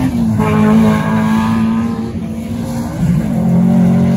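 Autocross race car engine running hard at high revs. The engine note dips briefly just after the start and again about three seconds in, then picks back up.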